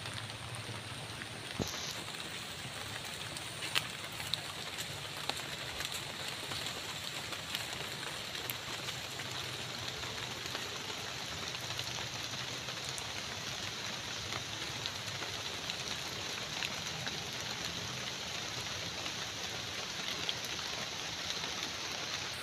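Rain falling on forest foliage: a steady patter with scattered sharp drip ticks.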